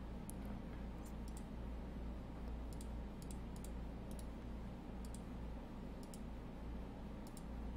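Faint computer mouse clicks, about a dozen spread unevenly, several in quick pairs like a button pressed and released, over a steady low hum.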